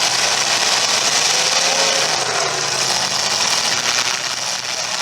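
Engines of demolition derby cars running and revving together: a steady, loud mechanical din with pitches rising and falling.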